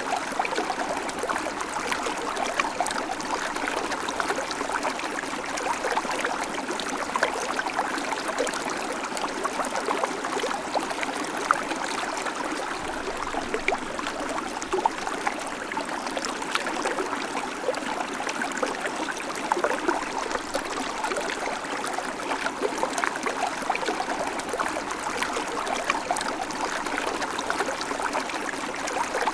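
Babbling creek: shallow water running and trickling over stones, a steady rushing with many small splashes and gurgles.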